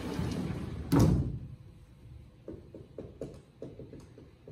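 A vertically sliding classroom whiteboard panel rumbling up its track and hitting its stop with a loud thud about a second in. Then come light taps and squeaks of a dry-erase marker writing on the board.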